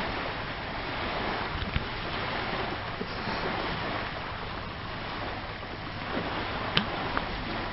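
Steady rushing noise of wind and surf on an open microphone by the sea, with a couple of sharp clicks near the end.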